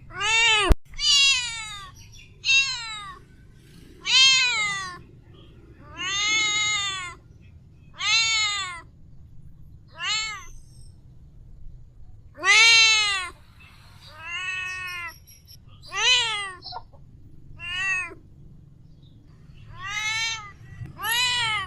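Mother cat meowing over and over, calling for her kittens. There are about a dozen clear meows, each rising and then falling in pitch, spaced one to two seconds apart.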